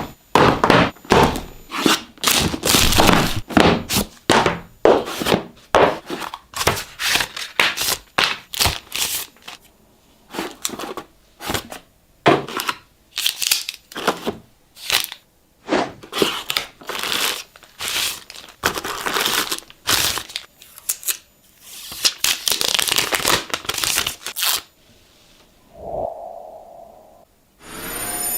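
Smartphone packaging being opened by hand: plastic film and cardboard torn, peeled and crinkled in a run of short crackling, rustling strokes with brief pauses. A short hum sounds about two seconds before the end.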